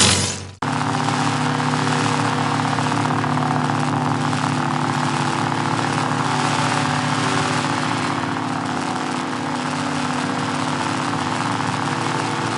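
Lightsaber sound effect: a loud ignition burst that dies away about half a second in, then a steady buzzing hum with a hiss over it.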